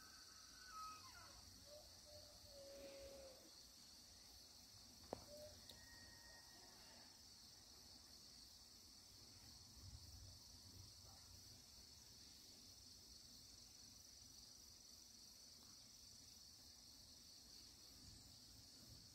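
Near silence outdoors, with a faint steady high-pitched insect chorus throughout. A few faint short chirps come in the first few seconds, and a single sharp click about five seconds in.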